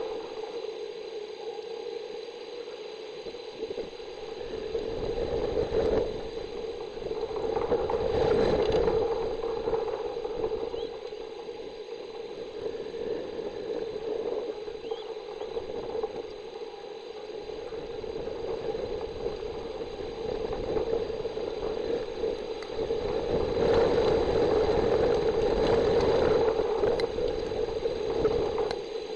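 Rushing wind and rain noise on an outdoor nest-camera microphone, swelling and fading in gusts with low rumbling buffets at the loudest moments.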